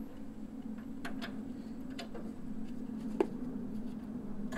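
Ratchet wrench working a rusted, stuck bolt on the truck's front suspension: a few scattered metallic clicks about a second apart, the sharpest just past three seconds. A steady low hum runs underneath.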